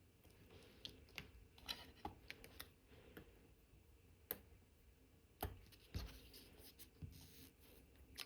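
Faint, irregular small clicks and taps of watchmaker's tools and metal parts being handled during assembly of an Omega Cal.1109 watch movement, about a dozen, a few sharper than the rest.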